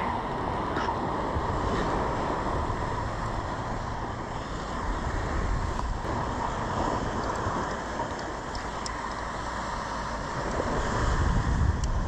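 Wind buffeting the microphone high in the rigging of a sailing yacht at sea, with the rush of the ocean below, steady throughout, and a faint steady whistle over it. A few small clicks of rope and hardware being handled.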